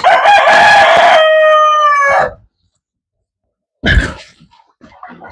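A rooster crowing once, loud and long, for a little over two seconds, its pitch dropping slightly as it ends. About four seconds in comes a single sharp wooden knock.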